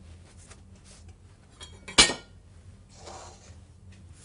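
One sharp metallic clink of a kitchen utensil knocking against a pan or the counter about two seconds in, followed a second later by a soft rustle of handling.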